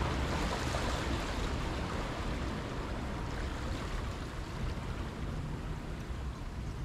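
Sea surf washing against the rocks of a jetty, a steady rushing wash.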